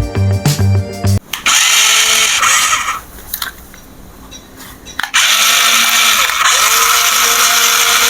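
Music for about the first second, then the small electric motor and gears of a remote-control toy vehicle whirring in two runs, with a pause of about two seconds between them.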